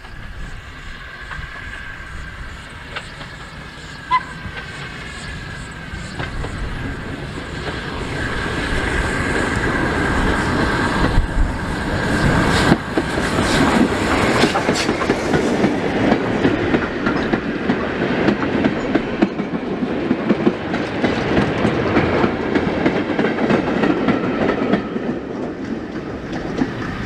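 LMS Ivatt 2MT tank locomotive 41312 and its coaches approach and run past, growing louder over the first dozen seconds and staying loud as the coaches roll by, then easing near the end. There is a single sharp knock about 13 seconds in.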